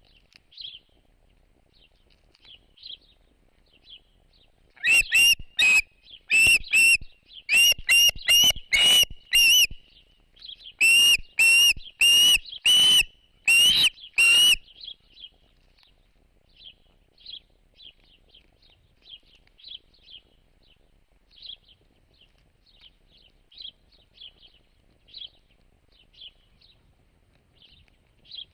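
A bird gives a run of about a dozen loud whistled calls between about 5 and 15 seconds in, over faint, scattered bird chirping.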